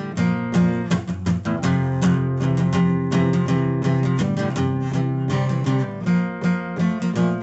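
Instrumental break of a song: acoustic guitar strumming chords in a steady rhythm, with no singing.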